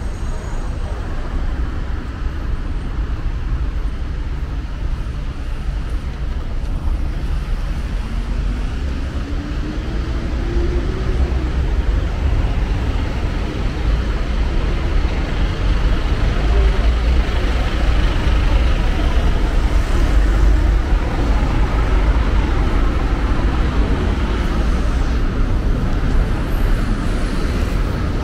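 City street traffic noise: road vehicles running with a steady low rumble that grows louder about halfway through, with passers-by talking.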